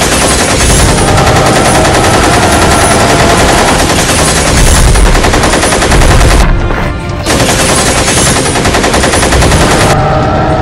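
Automatic rifle fire sound effect, one fast, unbroken stream of shots. It runs about six seconds, breaks off for under a second, then fires for about three seconds more.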